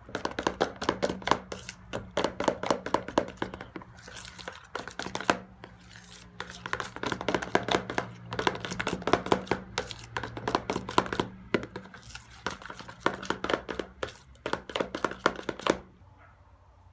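Plastic spatula stirring sticky glue slime in a plastic bowl as borax activator is mixed in: a fast run of wet clicks and scrapes, with a few short pauses. It stops shortly before the end.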